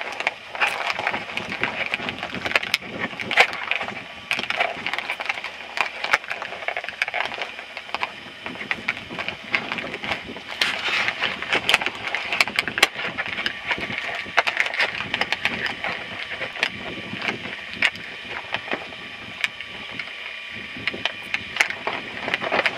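Irregular crunching and sharp crackles of crusted snow being walked on, a dense run of small clicks.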